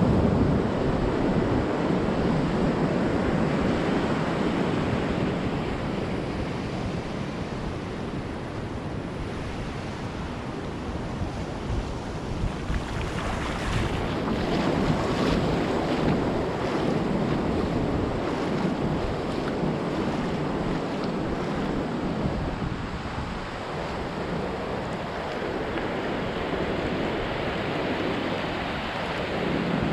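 Ocean surf breaking and washing up a beach, swelling and easing in turn, with wind rumbling on the microphone.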